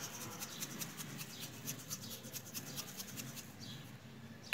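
Salt being sprinkled by hand over raw potato strips in a baking tray: a quick run of fine raspy ticks as the fingers rub the salt out. It ends with one sharp, loud knock.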